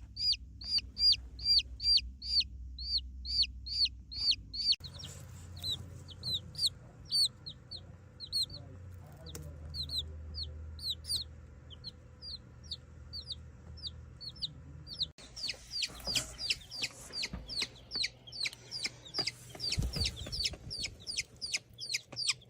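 Baby chicks giving distress peeps: high, piercing cheeps repeated in a steady stream, about two to three a second, a sign that the chicks are unhappy and need attention. The background changes abruptly at about five and fifteen seconds in, where one recording gives way to the next.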